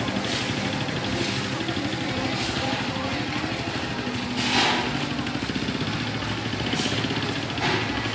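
A small engine running steadily at an even speed. Two short noisy rushes cut through it, one about halfway through and a smaller one near the end.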